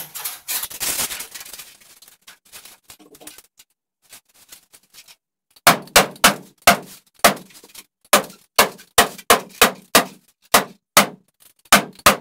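A hand staple gun fastening a plastic Durovent attic vent baffle to the roof deck: a quick run of about fifteen sharp snaps, two or three a second, starting about halfway through. Before that the stiff baffle rustles as it is pressed up between the rafters.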